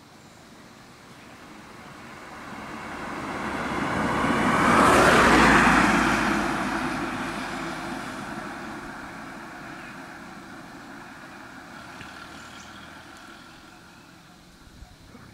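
A road vehicle passing by: engine and tyre noise swell over about five seconds, peak, then fade slowly away.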